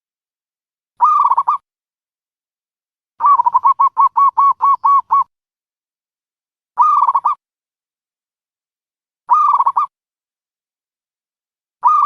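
Dove calls: short cooing phrases about every two and a half seconds, with one longer run of about nine quick repeated notes a few seconds in, and dead silence between the calls.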